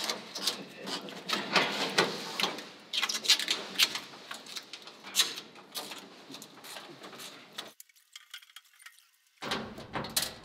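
Protective plastic film being peeled off a perforated steel pegboard panel: a quick run of crackles and tearing noises that breaks off about three-quarters of the way through, followed by a short, nearly silent gap.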